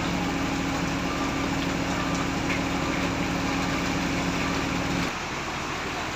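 Heavy rain hissing steadily, with a vehicle engine idling close by whose low hum cuts off about five seconds in.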